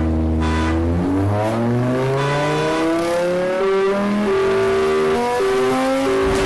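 Race car engine accelerating hard, its pitch climbing and dropping back several times as it shifts up through the gears.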